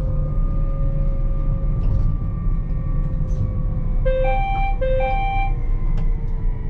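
Electric train's running noise heard inside the driver's cab: a steady rumble with a faint motor whine slowly falling in pitch as the train slows toward a station. About four seconds in, a short two-note tone, low then high, sounds twice.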